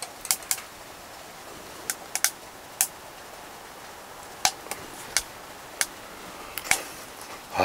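Irregular sharp clicks and ticks, about a dozen spread over several seconds, over a faint steady hiss.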